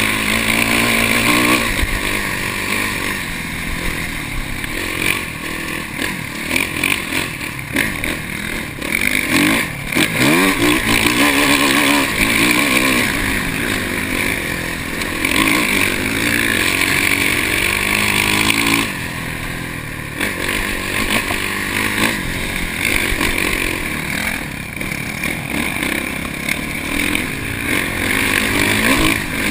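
Dirt bike engine heard up close from a camera mounted on the bike, revving up and down repeatedly as the rider works the throttle on sand.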